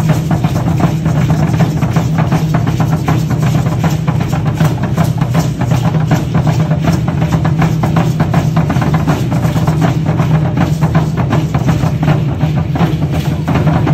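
Drumming for an Aztec dance, a fast steady beat, with the dense rattling of the dancers' rattles in time with it.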